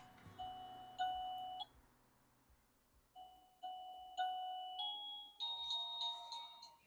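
Electronic door chime playing its melody through a newly replaced speaker, sounding clean with no screech: the repair has worked. Two clear beeping notes, a pause of about a second and a half, then a run of notes stepping up in pitch.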